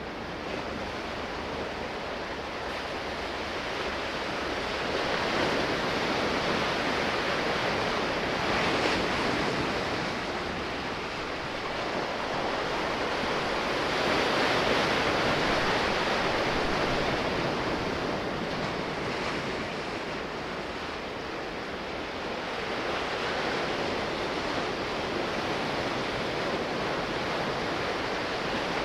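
Sea waves washing in, a steady rush that swells and eases in slow surges about every nine seconds.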